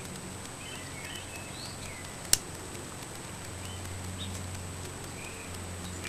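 A single sharp metallic click about two seconds in from the Leatherman Skeletool multitool's knife blade and lock being worked by hand, over a low steady hum with faint bird chirps.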